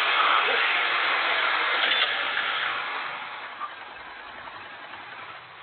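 Motorcycle running, loud at first, then fading away over a couple of seconds to quiet as the bike slows to a stop.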